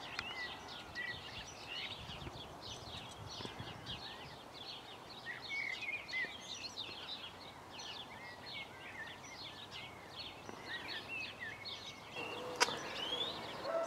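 Many birds singing outdoors, short high chirps and twitters following one another quickly over a faint steady background hiss. One sharp click near the end.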